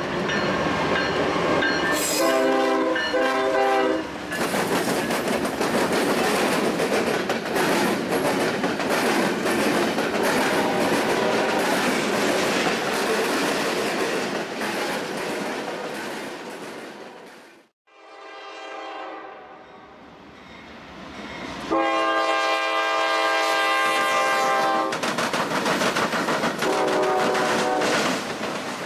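Freight train passing. The diesel locomotive's horn sounds a short blast, then double-stack well cars roll by with steady wheel and rail noise. After a break, a second freight train of autorack cars passes with a train horn sounding in long blasts, the loudest about three-quarters of the way through.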